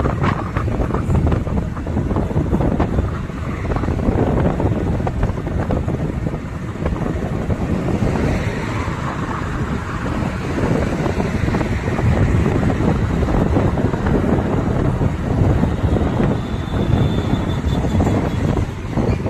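Wind buffeting the microphone over a steady vehicle rumble.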